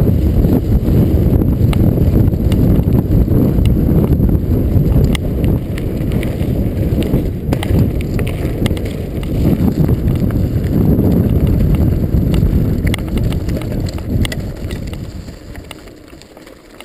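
Norco Storm hardtail mountain bike running fast down a dirt trail: heavy wind rush on the camera microphone and tyre rumble from its 26x2.5 Continental Mountain King tyres, with scattered clicks and rattles of gravel and drivetrain. The noise dies down over the last few seconds as the bike slows.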